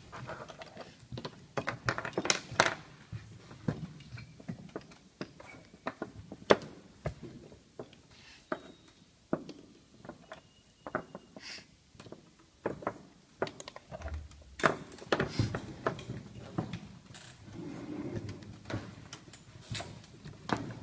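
Rapid, irregular knocks and clicks of plastic chess pieces being set down on a vinyl board and a digital chess clock's buttons being slapped during fast blitz play.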